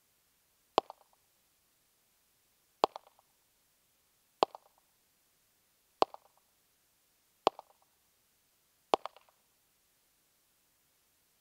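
Six pistol shots in slow, aimed fire, one about every one and a half to two seconds, each a sharp crack trailed by a short echo.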